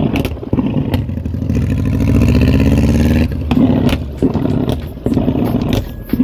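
Honda bagger motorcycle's engine being revved through its exhaust. Its pitch climbs for about a second from two seconds in, then drops back, with sharp cracks from the exhaust throughout.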